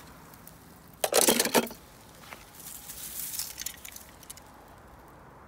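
Handling noise from a die-cast toy car: a short burst of clinking and rustling about a second in, then fainter crackling rustles.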